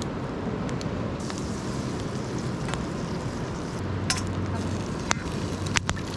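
Campfire burning, with a few sharp crackling pops near the end over a steady rushing background.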